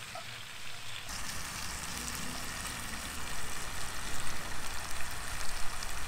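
Pork fillets and bacon sizzling in rendered fat in a cast-iron skillet: a steady crackling hiss that grows louder about a second in.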